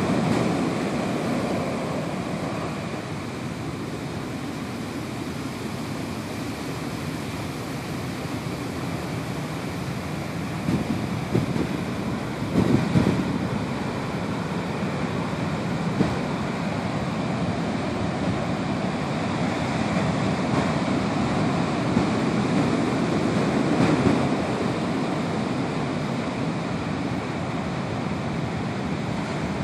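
Ocean surf: large white-capped waves breaking and their foam washing up the sand and draining back, a continuous rushing with louder surges as waves crash, a little before halfway and again later on.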